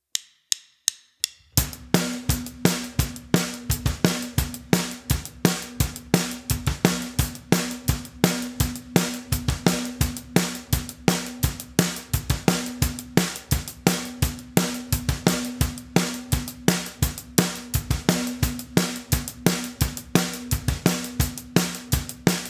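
Acoustic drum kit playing a steady eighth-note rock groove: closed hi-hat eighths, snare backbeat and bass drum, at a fast song tempo. It is a two-bar phrase, with the bass drum on 1 and 3 in the first bar and on 3 and 3-and in the second. A few light ticks come first, and the groove starts about a second and a half in.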